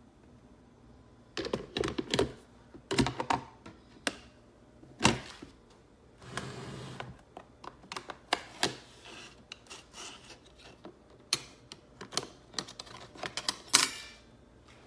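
Irregular clicks, knocks and rattles of the coffee maker's parts being handled, with a short rustling stretch about six seconds in.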